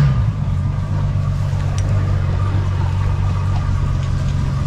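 Outboard motor idling steadily, an even low drone with a faint higher whine over it.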